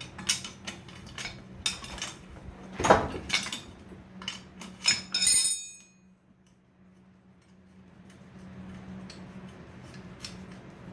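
Hand tools and loose metal parts clinking and clattering as exhaust-manifold nuts and hardware are handled. It ends in a ringing metallic clink about five seconds in, followed by a quieter stretch with a faint low hum.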